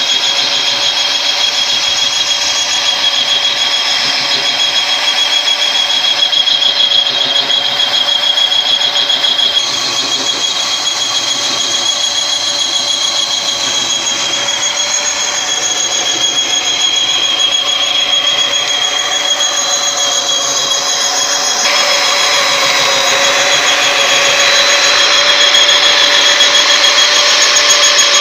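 Honing tool spinning inside an excavator boom's pin bore, giving a steady high-pitched squeal. The sound changes character abruptly twice.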